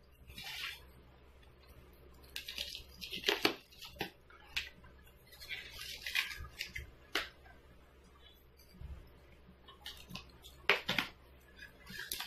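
Packaging being handled: bubble wrap and plastic rustling and crinkling while styrofoam packing slabs are pulled away, in irregular bursts with a few sharp clicks.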